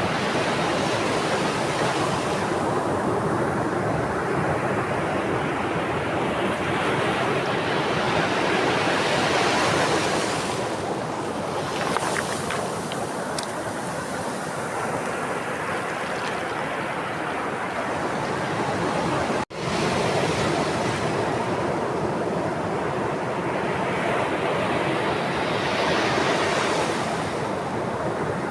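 Ocean waves breaking and washing on the shore, swelling and easing in two slow surges, with one sudden brief dropout about two-thirds of the way through.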